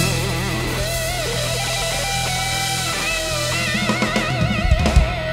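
Live band playing a closing instrumental passage: a sustained lead melody with wide vibrato over a held bass note, with drum hits gathering near the end.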